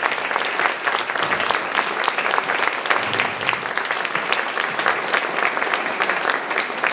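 Audience applauding steadily, with dense, even clapping and no music.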